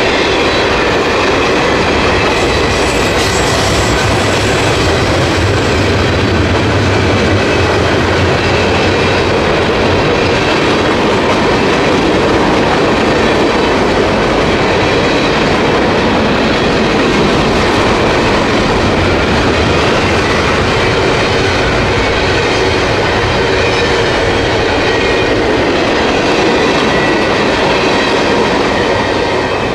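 Freight train rolling past close by: a loud, steady clatter of steel wheels on the rails, with a faint squeal of the wheels on the rails mixed in.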